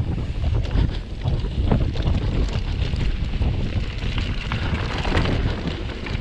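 Wind buffeting the microphone of a camera on a mountain bike rolling fast down a dirt trail. The tyres rumble over the loose, bumpy ground, with frequent small clicks and knocks of the bike rattling.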